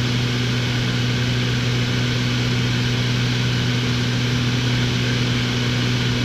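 Light aircraft's piston engine and propeller running steadily in flight, heard inside the cabin: a constant low hum with a steady rush of air noise over it.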